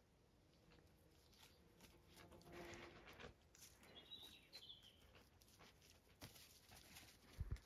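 Faint rustling and small clicks of puppies moving over moss and grass and nosing at a stick, with a short bird chirp about four seconds in and a dull low thump near the end.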